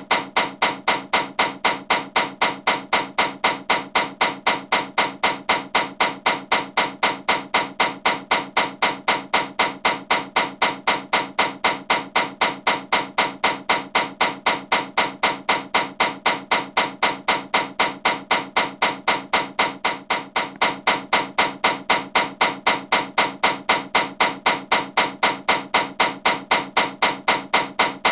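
Ceiling fan running with a loud, rapid clacking knock, about three to four sharp knocks a second, steady and evenly spaced, as if something strikes once with each turn of the fan.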